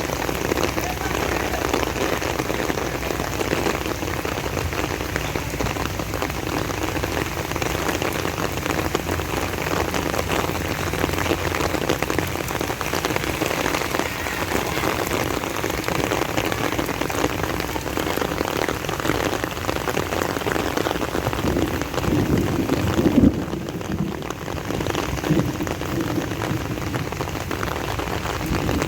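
Steady rain falling and pattering on surfaces, with a brief louder low thump about three-quarters of the way through.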